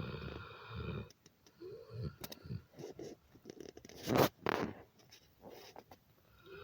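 Sleeping dog snoring. The snore breaks off about a second in, giving way to several seconds of short, irregular scratchy and breathy noises, the loudest about four seconds in. A snore starts again at the very end.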